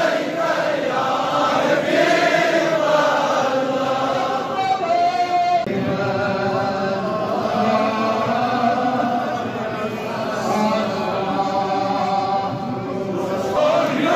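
Large crowd of men chanting together in a sustained devotional chant, the voices slowly rising and falling in pitch without pause.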